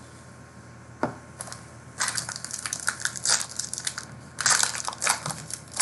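Plastic trading-card packaging crinkling and crackling as it is handled. One click comes about a second in, then two stretches of dense, irregular crackle.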